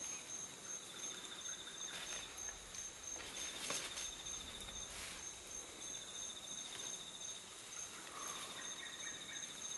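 Rainforest insects calling: one unbroken high-pitched trill and, under it, a pulsed trill that comes in bursts of about a second and a half every couple of seconds. A few short crackles are heard around the second to fifth second.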